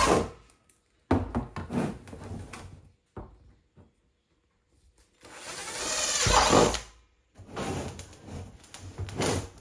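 Cordless drill boring holes in a plastic 55-gallon drum, in several separate runs with short pauses between them. In the longest run, about five seconds in, the motor's whine rises as it speeds up, is loudest about six and a half seconds in, and then stops abruptly.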